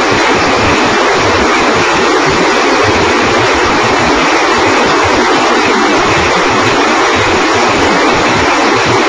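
Continuous loud rushing roar from a multi-barrel rocket launcher firing its salvo, steady throughout with no separate bangs standing out.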